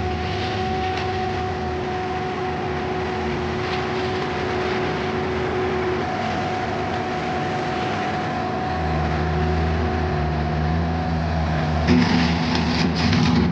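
Vermeer mini skid steer running steadily, with a held whine over its engine drone. The engine works harder about nine seconds in, and a short clatter comes near the end.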